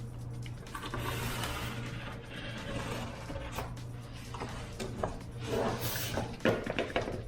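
Utility knife sawing and scraping through a Schluter foam shower pan, an irregular rasping with scattered clicks, louder and choppier near the end, over a low steady hum.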